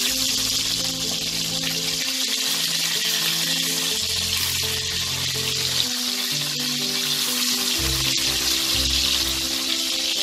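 Hilsa fish pieces sizzling steadily as they shallow-fry in hot mustard oil in a kadai while being turned over with a spatula. Background music of held notes runs underneath.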